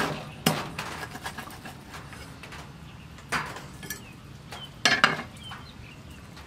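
Meat cleaver chopping into a raw duck on a wooden chopping block. There are sharp chops at the start (the loudest), about half a second in, around three seconds in, and a quick pair about five seconds in.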